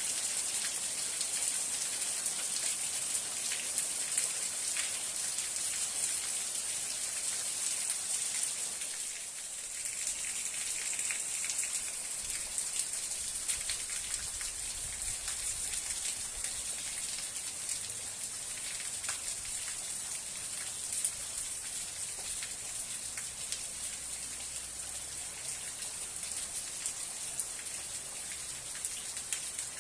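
Steady rain falling, a continuous hiss dotted with many small drop ticks, easing slightly for a moment about nine seconds in.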